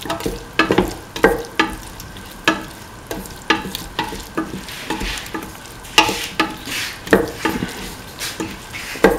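Spatula scraping and knocking against a steel pot about twice a second as cauliflower, tomato and onion are stirred, with the sizzle of the vegetables frying in oil underneath.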